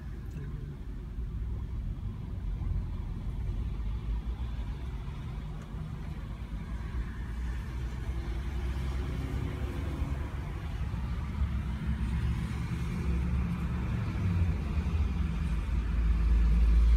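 Low, steady rumble of a car's engine and road noise heard from inside the cabin, growing louder near the end.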